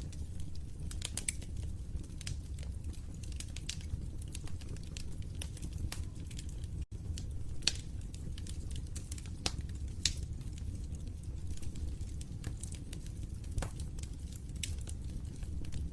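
Fire crackling in a fireplace: irregular sharp pops and snaps over a steady low rumble, with a momentary gap in the sound about seven seconds in.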